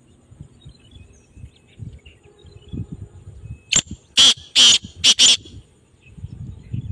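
Male black francolin calling: a sharp click, then a loud burst of four harsh, grating notes lasting about a second and a half, in the middle of a low, uneven rumble.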